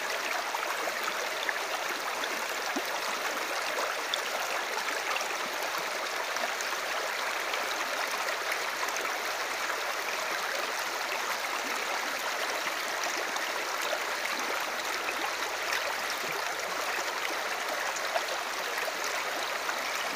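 Steady aquarium water noise: the filter's water splashing and bubbling into the tank, a continuous rush with fine bubbly ticks.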